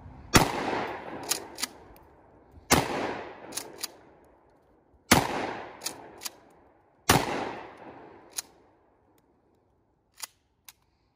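Mossberg Shockwave 12-gauge pump-action shotgun firing birdshot: four shots about two seconds apart, each blast trailing off in echo and followed by the short clack of the pump being worked to chamber the next shell. Two light clicks of the gun being handled near the end.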